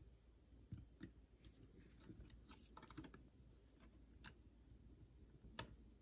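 Near silence with faint, scattered small plastic clicks and ticks: thermostat wires being handled and pushed into the ecobee SmartThermostat backplate's push-in terminals.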